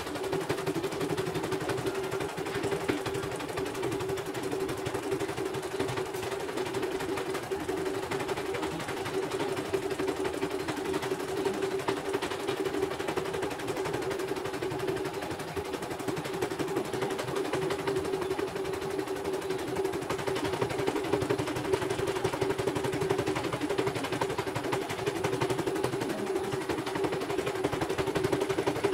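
CNY portable embroidery machine stitching a design: a steady, rapid clatter of the needle bar and hook, running without a break.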